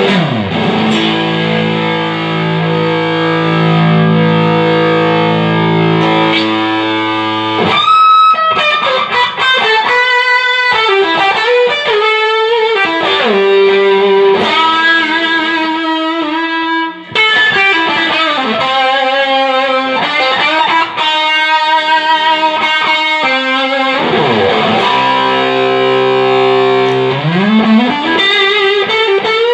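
Electric guitar played through a Fender Hot Rod Deluxe tube combo amp on a sound test after repair. A held chord rings for several seconds, followed by a run of single-note lead lines. Near the end the pitch dips and slides back up.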